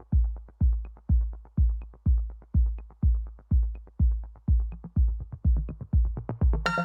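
Background electronic music: a steady kick-drum beat, about two beats a second, with light ticks between, and a synth chord coming in near the end.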